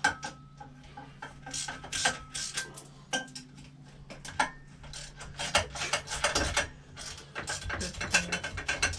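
Hand ratchet wrench clicking in repeated quick runs, with metal tools clinking in between, over a steady low hum.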